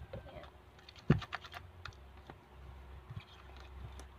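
Freshly borax-activated slime being mixed and handled: a run of small sticky clicks and pops, with one sharper knock about a second in.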